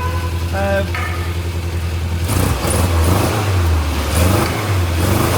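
MG Midget's small four-cylinder engine idling, with a brief beep a little after the start; from about two seconds in the engine is blipped, its pitch rising and falling several times.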